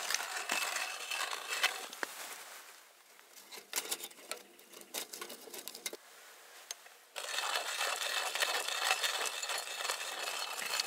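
Twigs crackling and popping as they burn in a Firebox Nano folding stick stove under a pot of water heating toward the boil. The crackle eases to scattered clicks in the middle as sticks are pushed into the stove, then comes back dense from about seven seconds in.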